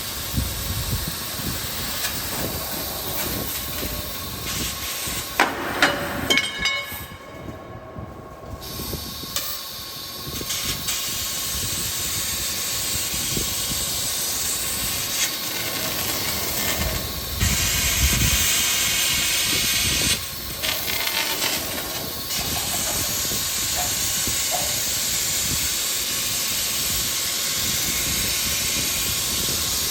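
Tube laser cutting machine bevel-cutting a thick carbon-steel square tube: a steady, loud hiss with machine noise under it. A few knocks come about six seconds in, then the hiss drops away for a couple of seconds before it resumes.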